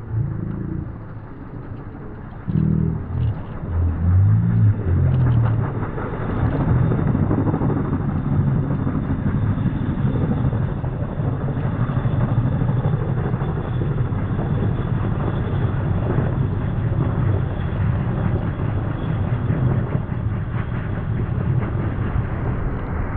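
WAH-64D Apache attack helicopter's rotor and turbine engines running steadily, with a fast, even rotor beat; louder from about four seconds in.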